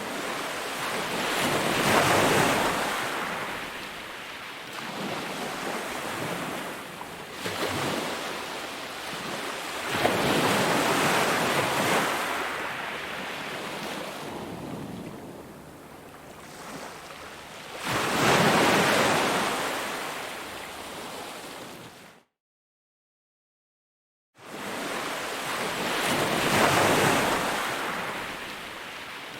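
Ocean waves breaking and washing on the shore, the noisy roar swelling and fading with each wave every few seconds. About three quarters of the way through the sound cuts out completely for about two seconds, then the waves start again.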